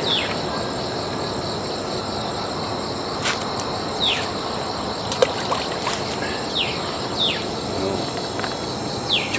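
Steady chorus of insects, a continuous high buzz, with a few short falling chirps every second or two and a single sharp click about three seconds in.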